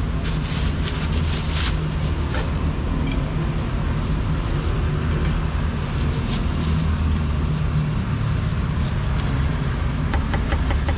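Steady rumble of street traffic. Near the end a cleaver starts chopping a cucumber on a wooden chopping board in quick, even strokes.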